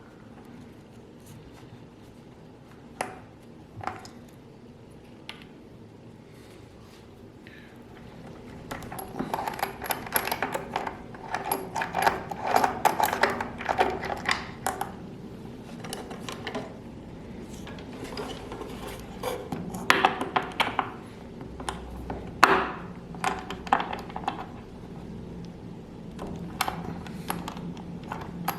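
Small hard objects clinking and clattering in a series of sharp clicks and knocks, a few scattered ones at first and a busy run from about nine seconds in.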